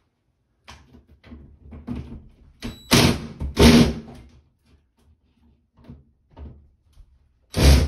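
Cordless DeWalt drill backing screws out of the sheet-metal housing of a ceiling bathroom exhaust fan. It runs in short bursts, two about three seconds in and one near the end, with light knocks and rattles between them.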